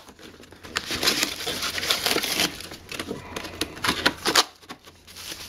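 Foam-wrapped laptop battery pulled out of a cardboard box compartment and handled: a run of rustling, crinkling and scraping of plastic wrap against cardboard, with a sharp knock about four and a half seconds in.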